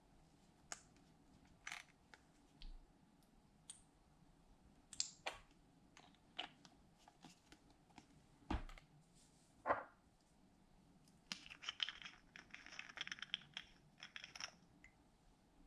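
Faint clicks and ticks of small plastic squeeze bottles being handled and squeezed, then a dense run of crackling clicks about eleven seconds in as a bottle cap is twisted open.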